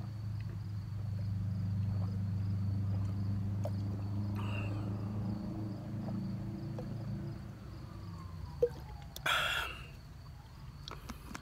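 A steady low pitched drone that fades away after about seven and a half seconds, while a man drinks from a bottle. About nine seconds in there is a short breathy exhale.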